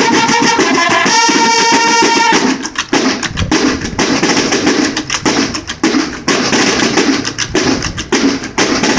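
Banda de guerra (Mexican drum and bugle corps) playing: bugles sound a melody over fast snare-drum rhythms, then stop about two and a half seconds in, leaving the drums playing on alone in a rapid, steady march cadence.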